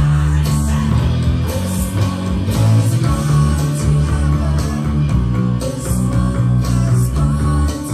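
Electric bass guitar picked with a plectrum, playing a run of low notes along with a rock backing track that has drums and cymbals.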